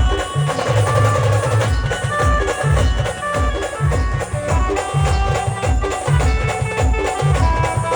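Live band music playing a pavri tune: a melody of held notes over a loud, steady, regularly repeating drum beat.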